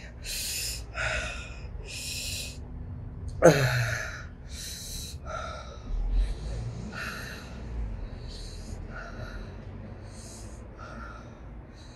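A woman breathing hard through her open mouth in sharp, hissing breaths, roughly one a second, with a short falling groan about three and a half seconds in. She is in pain from a mouth burned by Carolina Reaper peppers.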